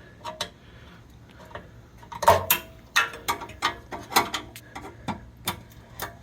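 Plastic wire-routing clips being pried off a steel bumper with a clip removal tool: a string of sharp, irregular clicks and snaps that starts about two seconds in.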